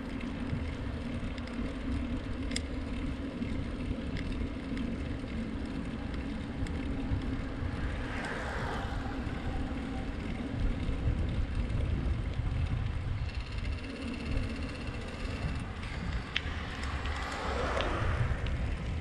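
Bicycle rolling along: a steady low rumble of tyres and wind, with a few light clicks and two passing swells, about eight seconds in and near the end.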